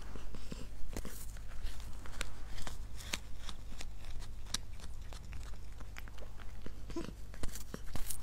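A cat gnawing and crunching on a dried chew stick held in its paws, in short irregular crunches.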